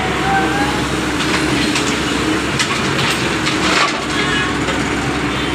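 Doosan DX140W wheeled excavator's diesel engine running steadily while loading rubble into a tractor trolley. For a couple of seconds in the middle, broken stone and earth crackle and clatter.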